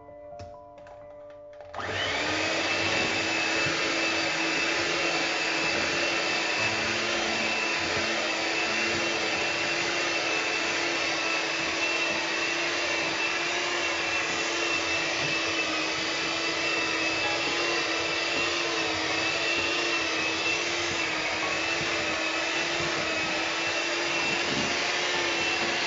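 Electric hand mixer switched on about two seconds in and running steadily with a constant hum and whine, its beaters whisking cake batter in a plastic bowl.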